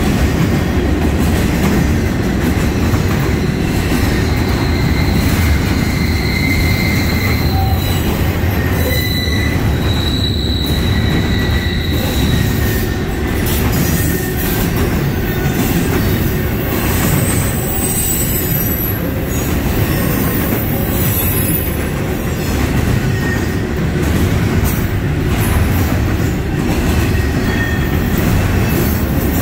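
Norfolk Southern double-stack intermodal train's well cars rolling past close by: a loud, steady rumble of steel wheels on rail. High-pitched wheel squeal rises and fades now and then, mostly in the first half.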